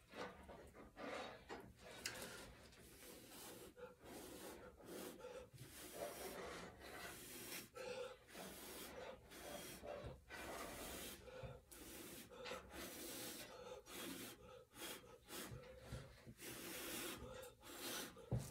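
A person blowing repeated puffs of breath onto wet acrylic paint to push it across the canvas in a Dutch pour, catching breath between puffs.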